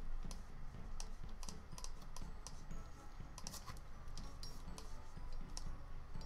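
Computer keyboard keys and mouse buttons clicking in a quick, irregular run, as in copy-and-paste shortcuts and selecting objects.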